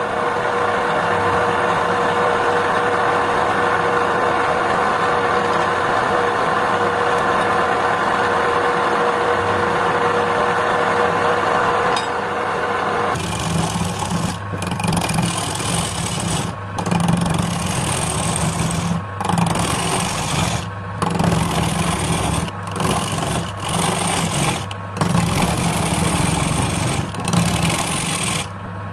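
A power tool's motor running steadily with a constant hum. About halfway through it turns rougher as it works the wood in repeated passes, dropping out briefly every second or two.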